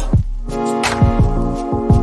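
Electronic background music: held chords over deep drum hits that drop in pitch, several to the second.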